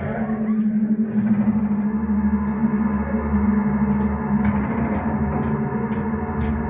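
A steady, resonant low drone, like eerie ambient music, with a few faint clicks.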